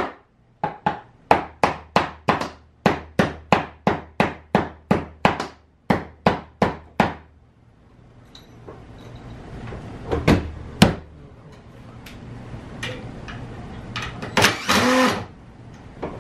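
A hammer drives nails into an overhead wooden framing header, about twenty quick strikes at roughly three a second. After that come quieter knocks and handling noise, with a few louder knocks near the middle and near the end.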